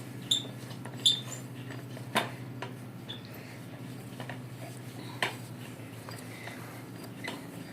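Light metal clicks and clinks from bicycle parts and tools being handled while the rear wheel and chain are adjusted, with a couple of short high squeaks in the first second or so, over a steady low hum.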